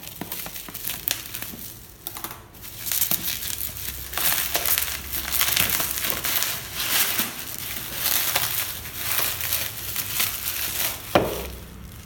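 Plastic bubble wrap being cut with scissors and then pulled and crumpled off a cardboard box, crinkling and crackling loudly in rapid irregular bursts. One sharp, louder snap comes near the end.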